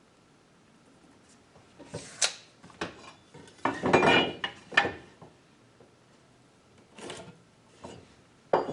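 Scattered clicks, light knocks and a short rubbing scrape as a wooden board is handled, measured and marked for a cut. The scrape about four seconds in is the loudest sound.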